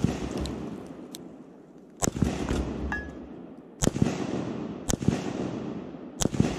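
Four 7.62x39 rifle shots, irregularly spaced about a second or two apart, each followed by a long rolling echo that dies away. The shots are hitting bowling balls and breaking them apart.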